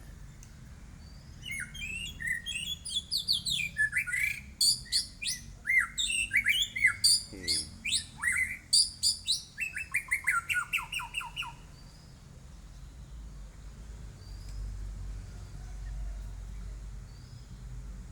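A pet songbird singing a fast, varied burst of sharp chirps and quick sweeping notes for about ten seconds, then falling silent.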